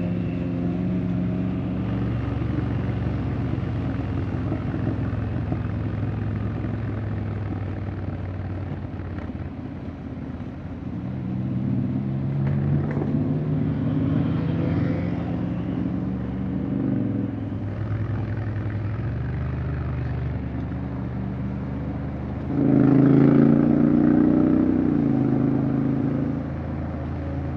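Honda X-ADV 750's parallel-twin engine running on the move, its pitch climbing about halfway through. It gets louder for a few seconds near the end as the throttle is opened, then settles back.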